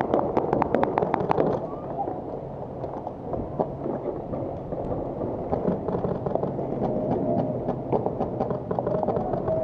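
Paintball markers firing rapid strings of shots, about six or seven pops a second, for the first second and a half, then scattered, fainter shots.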